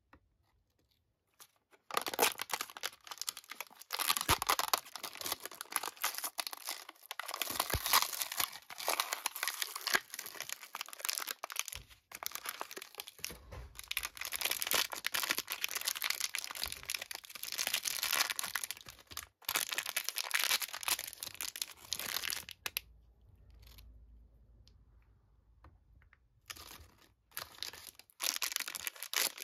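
Shiny pink plastic blind-bag wrapper being torn open and crinkled by hand, starting about two seconds in. The crinkling dies down for a few seconds near the end, then starts again.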